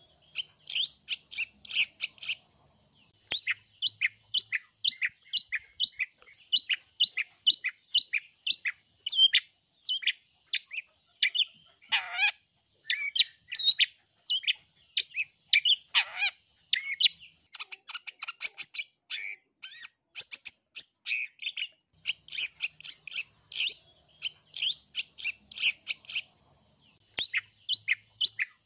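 Long-tailed shrike (cendet) singing a fast run of sharp, high chirps, several a second, broken twice near the middle by a harsh, scratchy call.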